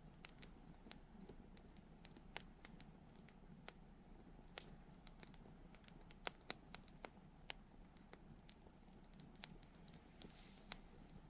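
Wood fire crackling: irregular sharp pops and snaps, a few of them louder, over a faint steady hush.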